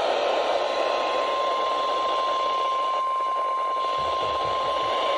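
NOAA Weather Radio 1050 Hz warning alarm tone: one steady high beep held without a break, over heavy radio static and hiss from poor reception. It signals that a warning message is about to follow.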